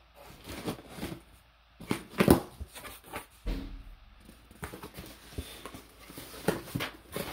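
Cardboard shipping box being opened by hand: packing tape pulled and the flaps lifted, then the box shifted. It makes a run of short rustles, scrapes and knocks, loudest about two seconds in.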